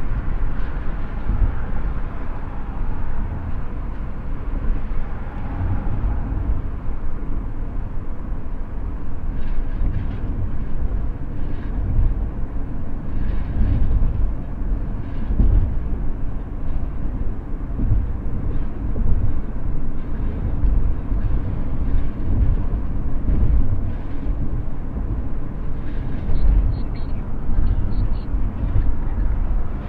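Steady low road rumble heard inside a car's cabin at highway speed: tyre and engine noise of the car driving.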